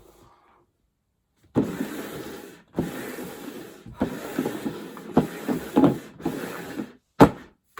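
Rubbing and scraping handling noise in a run of bursts about a second long each, with a sharp knock near the end.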